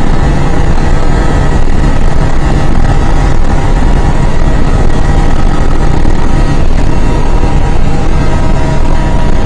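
Steady vehicle engine drone with heavy wind and road rumble at a constant high speed, heard from inside a car's cabin; the pitch holds level throughout.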